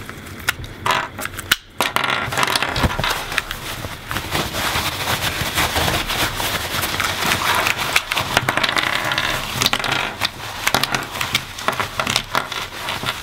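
Dense crackling and scraping with many small plastic clicks: a Dayan TengYun M magnetic 3x3 speedcube being taken apart and its pieces cleaned of heavy factory lube.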